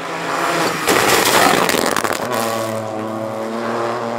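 Opel Corsa Rally4 rally car coming up at speed and passing close by, with a loud rush of tyres and engine as it goes past about a second in. Its engine note then holds steady and slowly fades as it pulls away.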